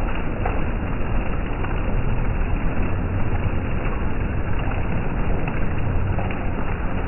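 Heavy rain falling on a street and plants, a steady rushing noise with a deep low rumble and no breaks.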